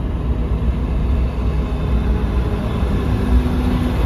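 Steady road noise inside a moving car's cabin: a low rumble of tyres and engine, with a faint steady hum.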